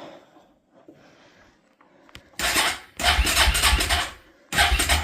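A cold Suzuki engine being cranked by its starter without catching: a click about two seconds in, then three bursts of pulsing cranking, each a second or so long.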